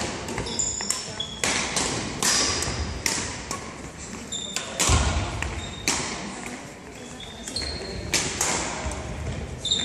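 Badminton rackets striking shuttlecocks during rallies: sharp hits roughly once a second, each trailing off in the echo of a large sports hall. Short high squeaks of court shoes on the hall floor come between the hits.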